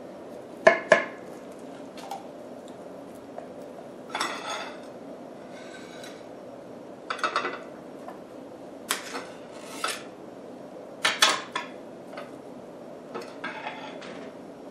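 Metal knife and spatula scraping and clinking against a ceramic casserole dish as a piece of casserole is cut and lifted out, in short separate strokes with pauses between. The two sharpest clinks come about a second in.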